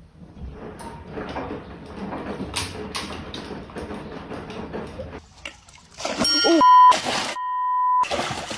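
A steady electronic beep tone, one pitch, sounding twice near the end between loud bursts of noise. Before it comes a softer jumble of clattering and rustling.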